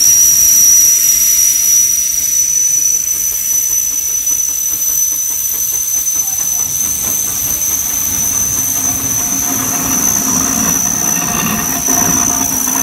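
Steam traction engines passing close: a steady hiss of steam with a thin high whistle-like tone throughout. A faint rhythmic working beat comes in about halfway, and a deeper rumble joins near the end.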